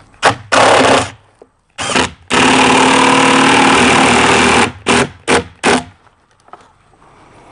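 Power drill driving mounting screws: a few short trigger blips, then a steady run of about two seconds, then three quick blips as the screw is snugged down.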